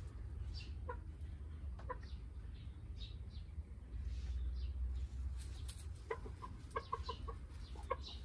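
Chickens clucking: a single short cluck about a second in and another a second later, then a quick run of clucks near the end, over a steady low rumble.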